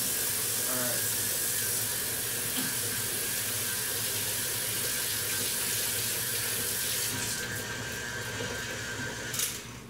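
Kitchen faucet running into the sink while hands are washed under it: a steady rush of water that turns choppy as the hands move through the stream, then cuts off near the end as the tap is shut.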